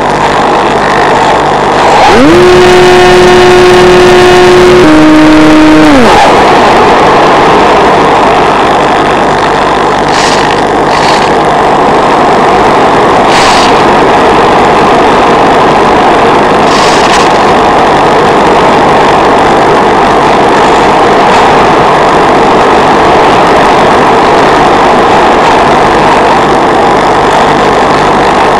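Loud steady rush of airflow on the onboard microphone of an electric RC plane in flight. About two seconds in, the electric motor and propeller whine up to speed, hold for about four seconds, then spin down, leaving the plane gliding. A few short crackles come later.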